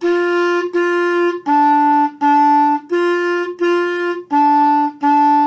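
Clarinet playing eight detached notes in a so-so-mi-mi-so-so-mi-mi pattern: two on a higher note, two a step lower, then the same again, each note about two-thirds of a second long.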